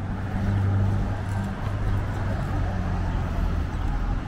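Street traffic: a motor vehicle's engine gives a low, steady hum over road noise, loudest about half a second to a second in.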